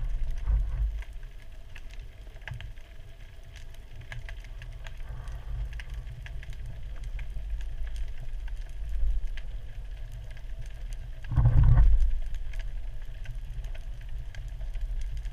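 Underwater sound heard through a GoPro's waterproof housing: a muffled low rumble of moving water, with scattered faint clicks and a louder surge about 11 to 12 seconds in.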